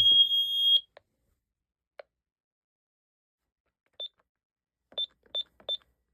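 Ademco LYNX-R alarm keypad powering up: a sharp click, then a steady high beep lasting nearly a second. A few seconds later come four short high beeps, the last three in quick succession.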